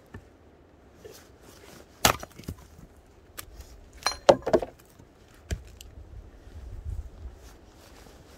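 Pieces of firewood being handled: a few sharp wooden knocks and clatters, a loud one about two seconds in and a quick cluster around four seconds in, with a low rumble near the end.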